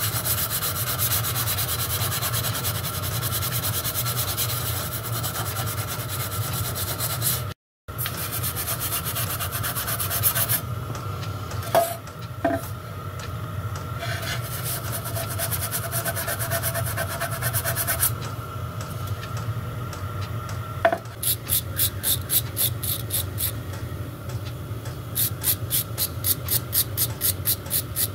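Wire wool rubbing over a brass tank plate around its soldered-on studs, cleaning it ahead of soldering. A few light knocks come partway through. Near the end, quicker back-and-forth scrubbing strokes follow, about three a second, with a small brush.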